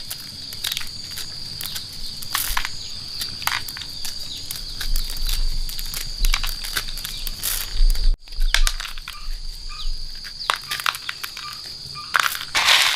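Insects trilling in a steady high drone, with frequent short crackles and rustles over it.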